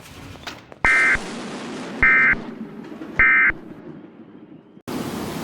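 Three short bursts of Emergency Alert System SAME data tones, each about a third of a second long and about a second apart: the end-of-message signal that closes a weather radio alert. Near the end, a steady hiss starts abruptly.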